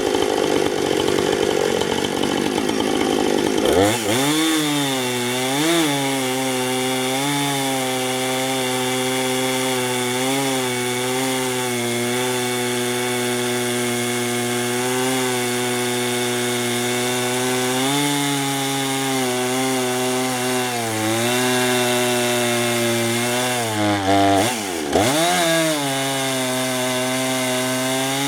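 Husqvarna Rancher 455 two-stroke chainsaw with a 24-inch bar and ripping chain running at full throttle in a chainsaw mill, ripping a log lengthwise. Its engine pitch sags briefly several times as the chain loads up in the cut and recovers, with one deep dip near the end.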